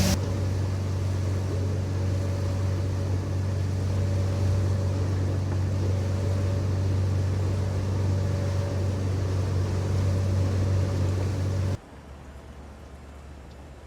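A sailboat's engine running steadily under way, a low drone as the boat pushes upriver against a strong current. Near the end it drops away suddenly to a much fainter low hum.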